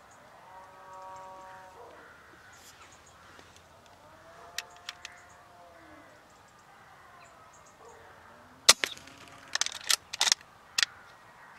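Harsh bird calls over a quiet rural field, with a few faint clicks. Near the end comes a sharp, loud click, followed about a second later by a quick run of clicks and knocks.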